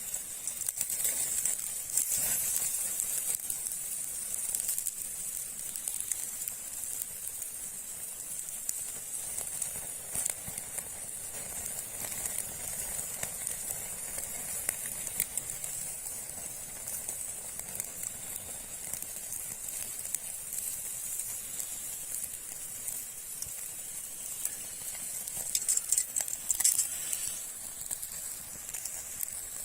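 Food cooking over a fire: a steady sizzling hiss with scattered crackles, a little louder about two seconds in and again near the end.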